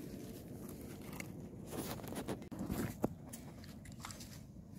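Faint crunching and rustling with a few short sharp clicks, the loudest about three seconds in: footsteps on leaf litter and stones.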